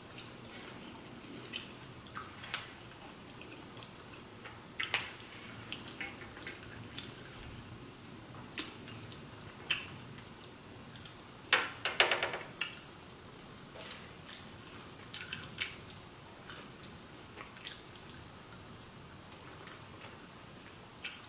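Close-miked chewing and biting of sauced chicken wings: scattered wet smacks and lip clicks, with a louder cluster about halfway through.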